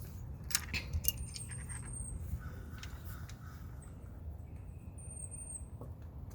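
Scattered small clicks and clinks of wire nuts and electrical wires being handled, a few sharp ticks in the first three seconds, over a low steady rumble.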